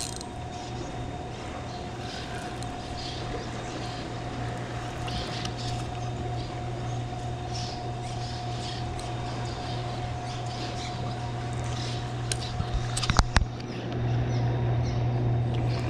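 Steady rush of water pouring over a river spillway, with a constant low hum under it and faint bird chirps. A few sharp clicks come near the end.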